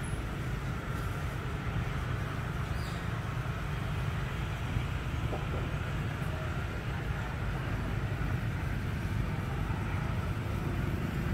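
Steady low rumbling background noise with a fainter hiss above it and no distinct event.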